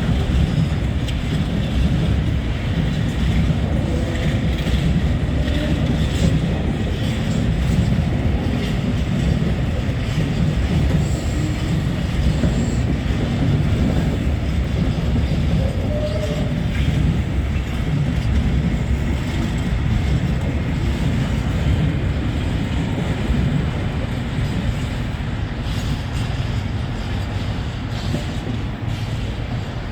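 Freight train rolling past: a steady, loud rumble of wagons on the rails with scattered faint wheel clicks.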